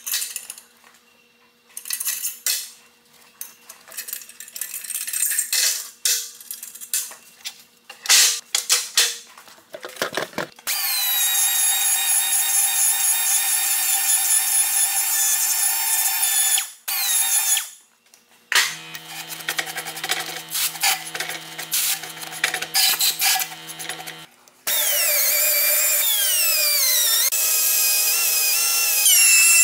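Irregular metal clicks and scraping for about the first ten seconds, then high-speed rotary grinders cutting cast aluminum weld. First comes a steady high whine, then a lower, steadier hum, and near the end a loud whine that dips and rises in pitch as the tool bears on the weld.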